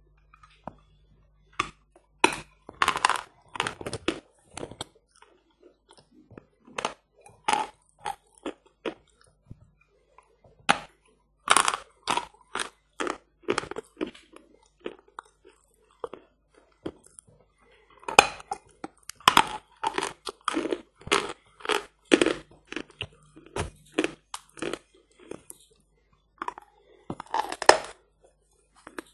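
A lump of hard natural eating chalk ('Badger' chalk) being bitten and chewed close to the microphone: sharp, crisp crunches in clusters of rapid bites with short pauses between them.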